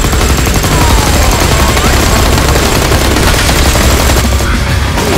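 Machine-gun and rifle fire sound effects laid over the footage, a dense, continuous volley of rapid shots with no break.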